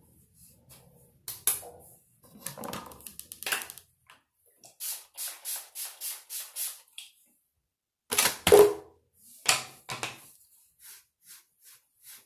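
Comb being drawn quickly through short hair: a run of short, scratchy strokes about three a second in the middle, with other scraping and rustling strokes around it, the loudest a little after two-thirds of the way through.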